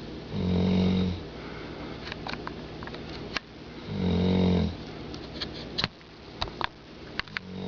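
Slow, even snoring: a low snore just under a second long about every three and a half seconds, two full snores and a third starting near the end.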